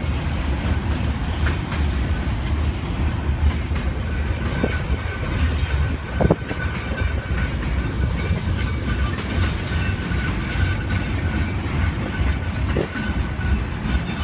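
Railroad cars rolling past with a heavy, steady low rumble and a few sharp wheel knocks. A thin, steady high-pitched whine comes in about four seconds in and holds on under the rumble.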